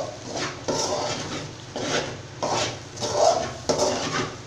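Spatula scraping and stirring potato and scrambled egg around a metal kadai, about six scraping strokes, a little over one a second.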